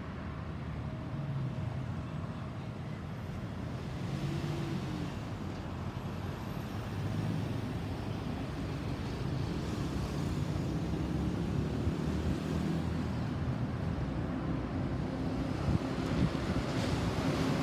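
Distant jet rumble from an Airbus A320neo's CFM LEAP-1A turbofans, heard from the ground and slowly growing louder as the airliner approaches.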